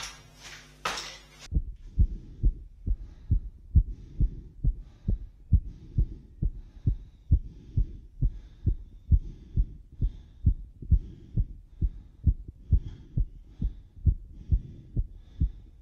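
A human heartbeat heard through a stethoscope pressed to the chest: quick, even thumps, a little over two a second. The heart rate is raised just after a set of jump squats. It opens with a second or so of louder room noise before the heartbeat comes in.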